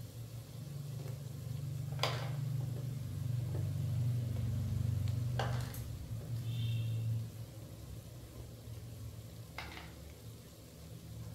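A utensil tapping sharply against a cooking pan three times, over a low steady hum that swells and then eases off about two-thirds of the way through.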